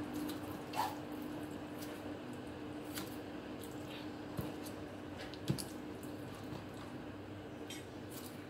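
Kitchen scissors snipping through raw chicken skin and fat, with wet squishing as the raw chicken breast is handled on the cutting board: scattered short sharp snips and clicks over a steady low hum.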